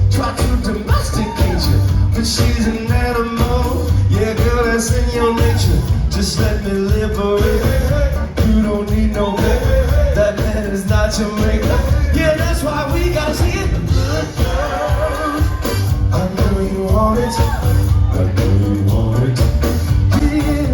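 Live band music with a heavy bass beat and a wordless sung melodic line over it.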